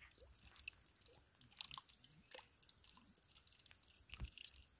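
Faint, irregular crunching and crackling of footsteps on dry soil and twigs.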